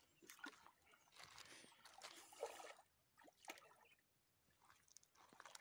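Faint splashing and trickling of shallow water as a hooked fish thrashes at the surface and a landing net is dipped in to scoop it up. A few soft splashes come and go, with a quieter stretch a little past the middle.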